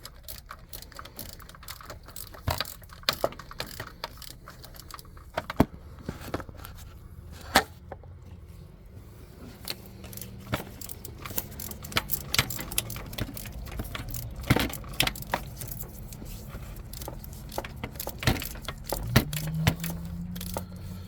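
Ratchet clicking irregularly, with metal-on-metal clinks of the socket and tools, as the starter mounting bolts are run in and tightened.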